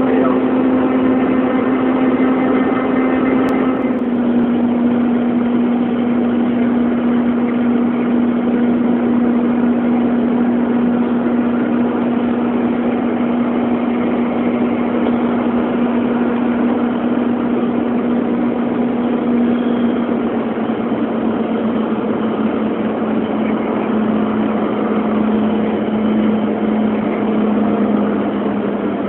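Cabin noise of a Cessna Citation II jet in flight: a steady rush with the drone of its twin turbofan engines. A steady hum in the drone steps slightly lower in pitch about four seconds in and again near twenty seconds.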